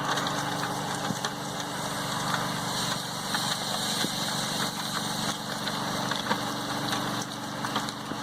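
Chicken crackling and hissing on a hot grill, over a steady low mechanical hum like a running motor or engine.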